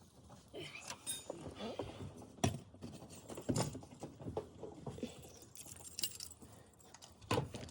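Irregular clicks, taps and light rattles of parts being handled around a vehicle's dashboard and instrument cluster.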